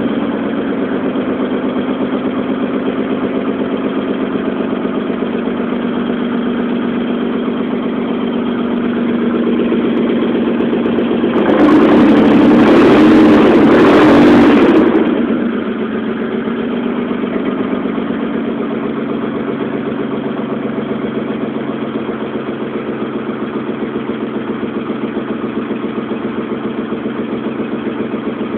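Nissan 300ZX V6 engine, running again after being rebuilt from a disassembled state, idling steadily. About twelve seconds in it gets louder and harsher for roughly three seconds, then settles back to a steady idle.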